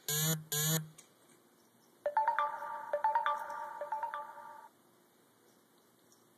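A telephone ringing: two short rings in quick succession, then, about two seconds in, roughly two and a half seconds of an electronic ringtone melody of steady, stepping tones.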